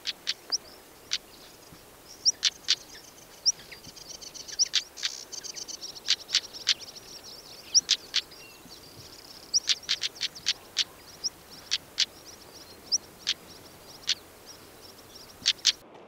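Small songbirds calling: loud, sharp clicking notes at an irregular pace, mixed with thin high chirps, with a high twittering song in the middle.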